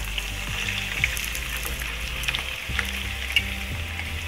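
Raw chicken pieces sizzling as they go into hot oil with fried onions in a kadhai: a steady frying hiss with scattered sharp crackles of spitting oil.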